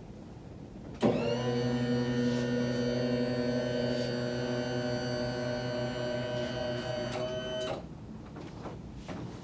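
Electric hospital bed's motor running as the bed lowers: a steady hum that starts suddenly about a second in, rises slightly in pitch at the start, and stops after about seven seconds.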